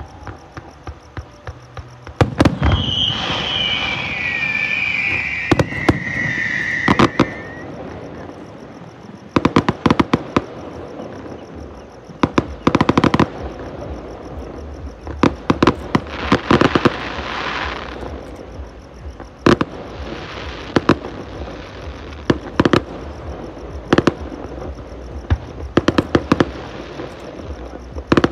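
Fireworks display: a run of aerial shell bursts and sharp bangs. A falling whistle runs from about three to seven seconds in, and there is a stretch of dense crackling about two-thirds of the way through.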